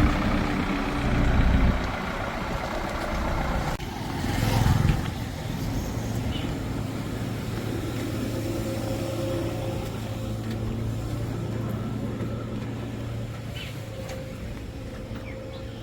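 Heavy diesel engine running, surging louder twice in the first five seconds, then settling to a steady drone.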